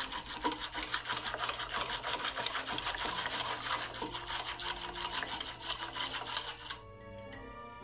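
A stirring stick spun rapidly back and forth between the palms, churning liquid in a glass mason jar: a fast, continuous rasping rub of skin and stick that stops abruptly about seven seconds in.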